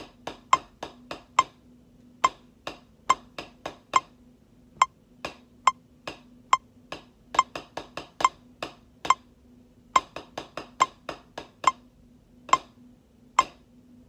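Drumsticks striking a drum practice pad in a rhythmic beginner exercise at 70 bpm. The strokes are sharp dry clicks, with a couple of short rests in the pattern.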